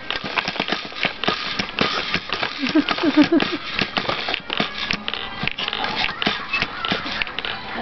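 Baby bouncing vigorously in an activity-centre jumper: a fast, irregular clatter and rattle of the jumper's frame and attached toys with each bounce.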